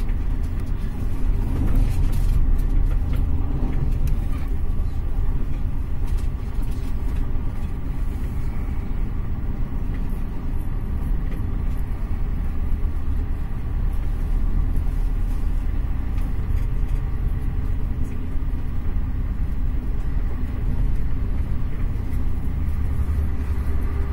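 Intercity passenger train running at speed, heard from inside the carriage: a steady low rumble of wheels on rails and the moving coach, with a few light clicks in the first several seconds.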